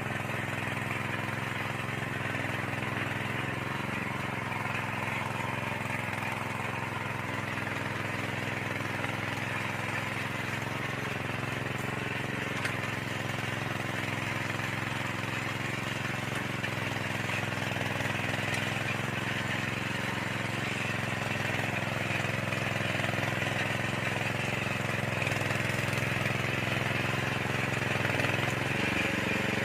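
Small engine of a motorised soil tiller running steadily, growing slightly louder toward the end.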